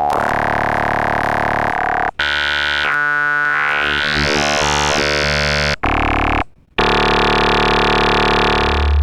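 Synthesizer built from formant oscillators, with phase modulation applied to their sine-wave component, playing a few sustained notes rich in overtones, separated by short breaks. In the second note the bright upper part of the tone dips and then sweeps back up.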